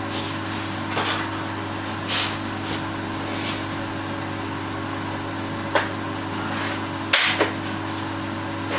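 Several sharp wooden knocks, about six, as workpieces are handled on the bench. A steady machine hum runs underneath.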